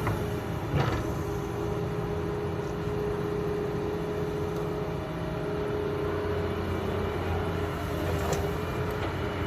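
Excavator's diesel engine running steadily with a held whine over a low hum, and a single knock about a second in.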